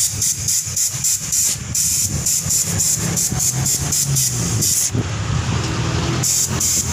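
Compressed air hissing from an air hose pressurising a soaped copper radiator tank for a leak test, in quick irregular pulses that ease off for about a second near the end, over a steady low hum.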